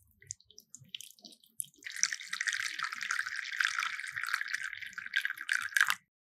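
Liquid pouring in a steady stream for about four seconds, then stopping abruptly, after a few light taps.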